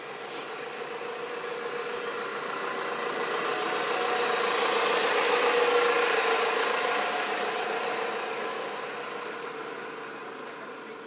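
Truck engine idling with a steady hum, growing louder to a peak about halfway through, then fading as it is walked past.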